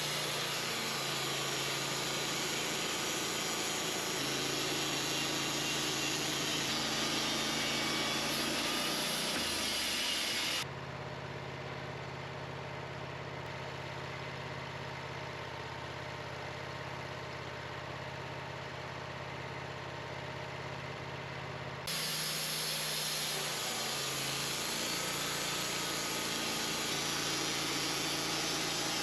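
Bandsaw sawmill running, a steady engine hum with a hiss over it. About eleven seconds in the sound drops abruptly to a quieter, lower steady engine note without the hiss, and about eleven seconds later it switches back just as abruptly.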